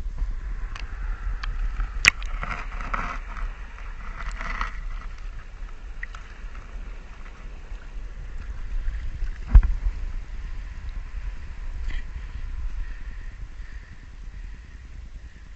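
Seawater washing and gurgling among tide-pool rocks over a steady low rumble, with scattered clicks and one loud thump about nine and a half seconds in.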